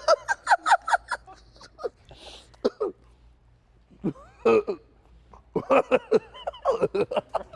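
Laughter in bursts: a quick run of laughs at the start, a couple of short ones in the middle, and another run near the end.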